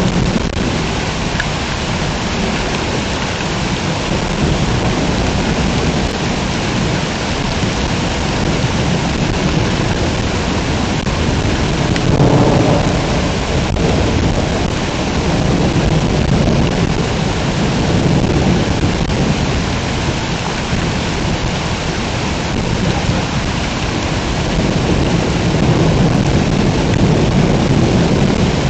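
Heavy rain pouring steadily in a thunderstorm, with low thunder rumbling and swelling up several times, around the middle and again near the end.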